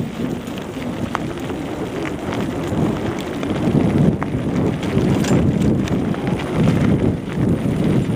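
Off-road bicycle ridden fast over rough ground: wind rushing over the microphone, with the bike clattering and knocking on the bumps.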